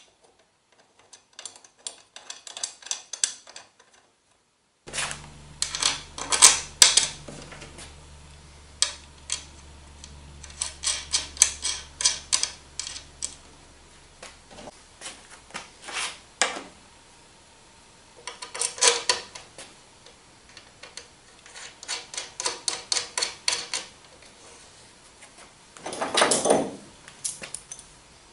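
Clicks and clinks of small steel bolts and hardware being handled and fitted through a steel plate into a drive shaft collar, in clusters of rapid ticks.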